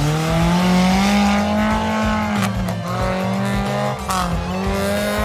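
Off-road 4x4 engine revving hard under load. It rises in pitch at the start and holds high, drops about halfway through, then climbs again.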